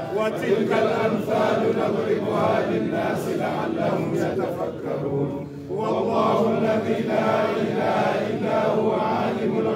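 A group of men chanting Arabic religious recitation together, many voices at once, with a short pause about five and a half seconds in before the chant resumes.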